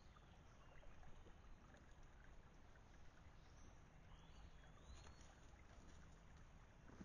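Near silence: a trail camera's faint steady hiss and low hum, with a few faint, distant bird whistles between about three and a half and five seconds in.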